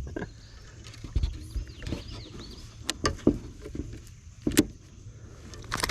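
Irregular knocks and taps in a kayak, about eight sharp strikes spread unevenly, from handling a just-landed small largemouth bass and gear.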